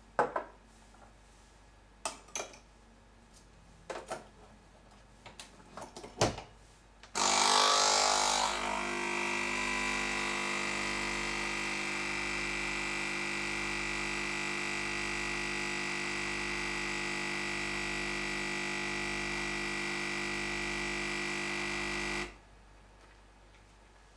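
A few light glass clinks and knocks as small glass cups are set on the counter, then a Nespresso Pixie capsule machine's vibratory pump starts about seven seconds in with a brief hiss and hums steadily for about fifteen seconds while brewing an espresso shot, cutting off suddenly at the end of the shot.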